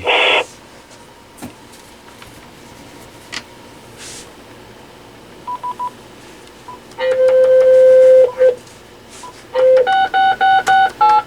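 Electronic beeps and tones from a Panasonic KX-TG6841 cordless phone: three quick high beeps about halfway through, then a long lower tone for over a second, then a run of short beeps and tones stepping in pitch near the end.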